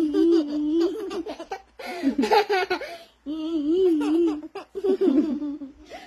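Baby laughing in several bouts of high, wavering giggles with short breaks between them.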